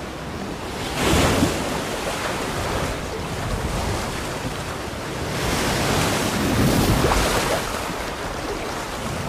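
Ocean surf and wind: a steady wash of sea noise that swells about a second in and again around six to seven seconds in.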